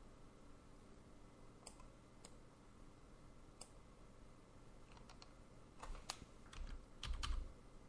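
Faint clicks of a computer mouse: a few single clicks spread apart, then a quicker run of clicks near the end.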